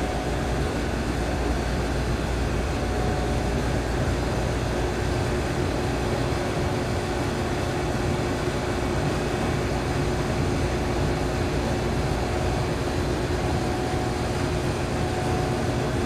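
Egg incubator's fans and machinery running: a steady low hum and fan noise with a faint constant tone.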